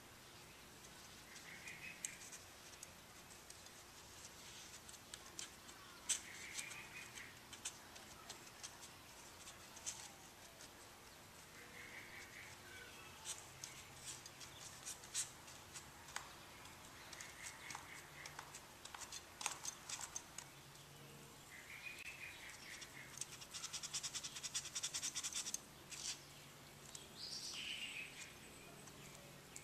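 Faint rustling, scratching and clicking as woven fiberglass cloth is handled and dabbed with a resin brush, with a quick run of scratchy brush strokes near the end. A short high chirp recurs about every five seconds.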